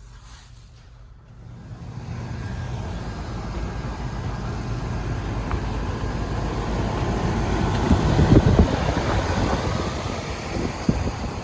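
Steady outdoor rumble of road traffic that comes up suddenly about a second and a half in, with a few louder low thumps around eight seconds.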